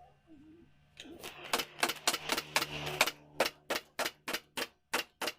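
Upholstery staple gun firing staples in quick succession, about three or four sharp clacks a second, with a low steady hum under the first couple of seconds.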